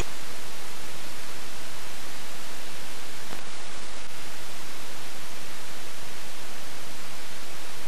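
Loud, steady static hiss from a blank or broken-up stretch of analogue video tape, even from low to high with no tones in it. It cuts off abruptly at the end.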